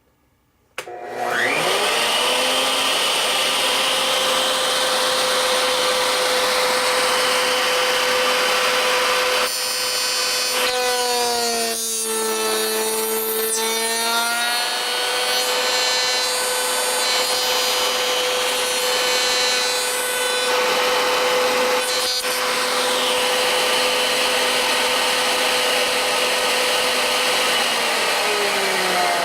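Router on a router table spinning up about a second in and running at a steady pitch, then running lower for a few seconds in the middle as the bit cuts a box joint slot through the wood, and starting to spin down at the end.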